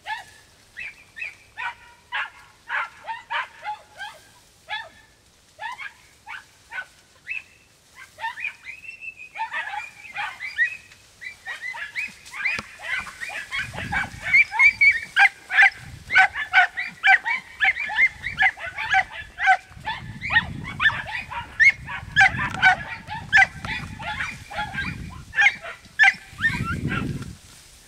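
A pack of podenco hounds barking in full cry on a rabbit's trail: sharp yelping barks, spaced out at first, then from about ten seconds in several dogs bark over one another in a fast, almost continuous chorus. Several bursts of low rumble sound underneath in the second half.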